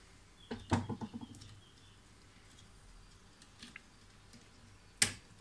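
Light clicks and rattles of plastic fuser-unit parts and wiring being handled while the cables are worked free: a short cluster of clicks about half a second to a second in, a few faint ticks midway, and one sharp click near the end.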